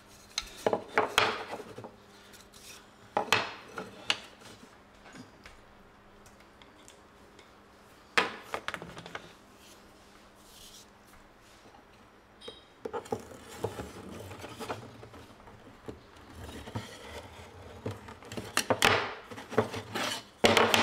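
Thin wooden strips of a small box frame handled on a wooden workbench: scattered sharp wooden knocks and clacks as the pieces are set down and fitted together, with rubbing and scraping of wood on wood between. A few knocks come in the first few seconds and one about eight seconds in, then a stretch of softer rubbing and tapping with a cluster of sharper knocks near the end.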